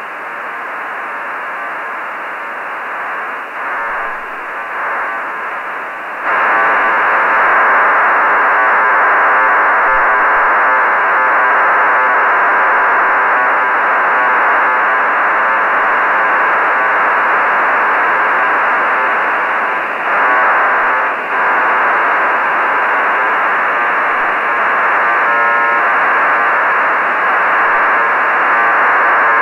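HuskySat-1 satellite's 1200 bps BPSK telemetry signal received through a ham radio's SSB receiver: a dense hiss and buzz cut off above about 3 kHz. It gets much louder about six seconds in and dips briefly twice near the twenty-second mark.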